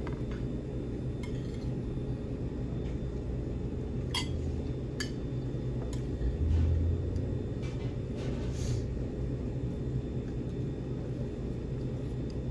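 A few sharp clinks of tableware on plates while a meal is eaten, over a steady low room hum, with a dull low thump about halfway through.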